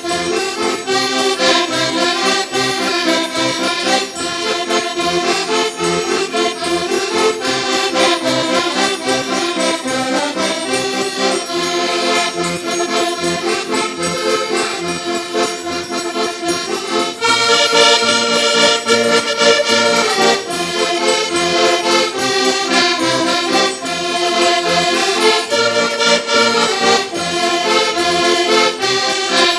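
Ensemble of Portuguese diatonic button accordions (concertinas) playing a lively traditional tune together over a steady beat. The music gets louder and brighter about seventeen seconds in.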